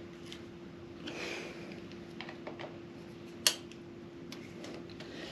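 Screwdriver and hand work on a motorcycle's choke cable fitting: scattered faint clicks and a short rustle, with one sharp click about three and a half seconds in, over a steady low hum.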